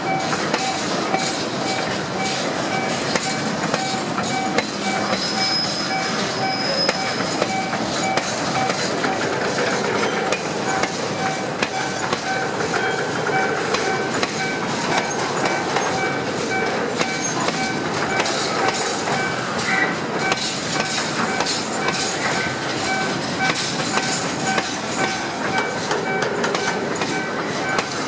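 Freight train of tank wagons rolling past a level crossing, its wheels rumbling and clattering over the rails. Over it sounds a rapidly repeating electronic warning tone from the crossing signal.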